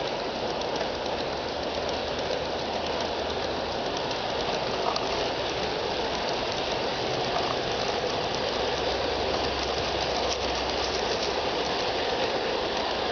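Large-scale garden railway freight cars rolling past on the track, the wheels running with a steady rumble and a few faint clicks.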